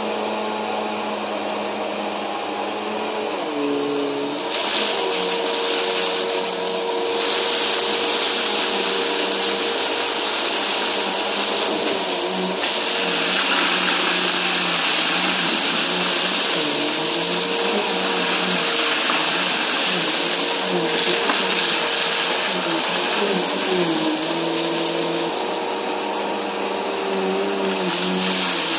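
Upright bagless vacuum cleaner running as it is pushed over a rug full of fine dirt and debris, its motor whining steadily with a wavering hum. The rush of suction grows louder about four seconds in and again about twelve seconds in.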